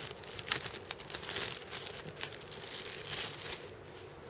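Packaging crinkling and rustling in irregular crackles as the contents of a camera box are handled and unwrapped.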